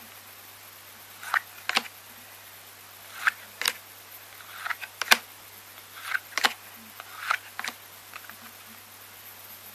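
Trading cards being handled one after another: a soft slide and then a sharp snap each time, about eight times in a row at roughly one a second, over a faint steady electrical hum.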